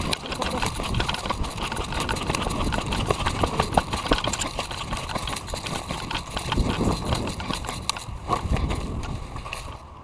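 Footsteps on rough ground: a quick, irregular run of crunches and knocks with no steady rhythm.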